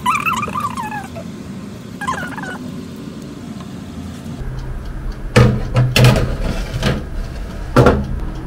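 Metal baking tray being pushed into a countertop electric oven, clanking and scraping on the wire rack several times in the second half, over a steady low hum. Before that, two short wavering high-pitched sounds.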